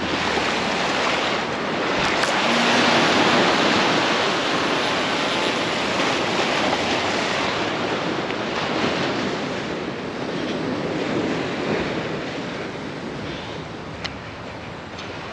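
Ocean surf washing on the shore: a wave surges in, loudest a few seconds in, then eases off into a steady wash, with wind buffeting the microphone. A single light click sounds near the end.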